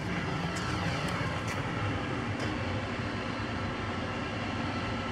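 Kone EcoDisc gearless traction lift running in its glass shaft after being called: a steady mechanical hum with a few faint clicks in the first couple of seconds.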